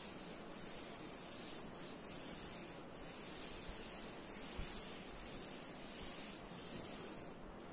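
Cloth wiping a chalkboard clean: a rubbing hiss in a run of back-and-forth strokes about a second each, with short breaks between them, easing off near the end.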